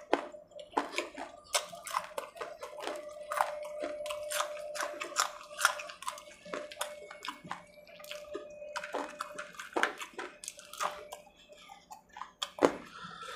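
Close-miked eating of fried potato-and-onion pakora: chewing with many wet mouth clicks and lip smacks, and fingers being licked partway through.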